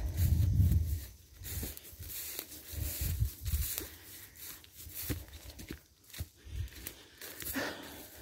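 Footsteps through tall grass and weeds, with irregular rustling and crackling of stems and short low thumps of the steps. A low rumble on the microphone in the first second.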